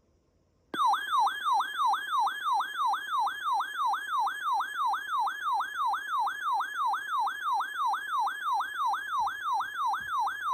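Electronic siren-style alert tone from a weather alert receiver, sounding a warning. It starts abruptly about a second in and sweeps up and down about three times a second.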